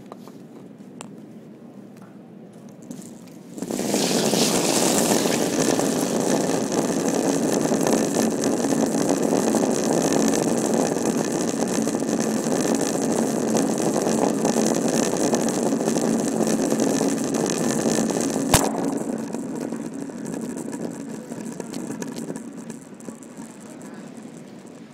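A 44 lb (20 kg) granite curling stone sliding down pebbled ice, its running surface rumbling loudly and steadily once it starts moving about four seconds in. About three-quarters of the way through comes a single sharp knock as it strikes another stone, and the rumble then fades as the stone slows.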